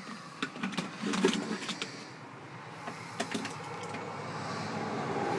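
Plastic clicks and knocks of wireless headphones being pulled out of a wooden cabinet, then a steady low hum slowly growing louder.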